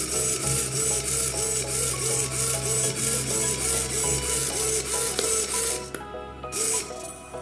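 Small hobby servo sweeping a cardboard paddle rapidly back and forth, about three strokes a second, each stroke a short motor whine with the cardboard scraping against the cardboard tube. It stops about six seconds in.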